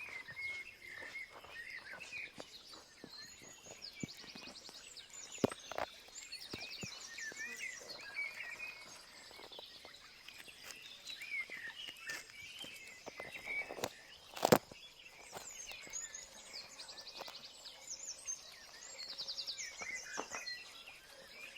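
Outdoor birdsong: many small birds chirping, with short fast trills now and then. A single sharp click or knock about fourteen seconds in.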